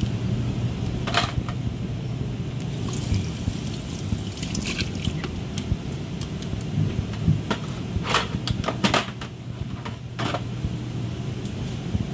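Cooked crab being broken apart by hand: scattered sharp shell cracks and wet squelches, over a steady electric fan hum.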